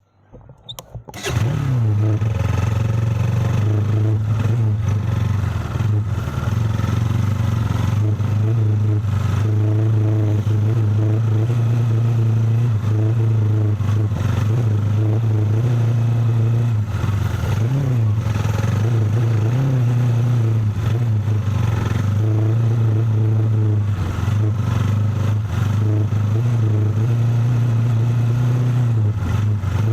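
A vehicle engine running steadily under way, with a brief rise and fall in pitch about eighteen seconds in.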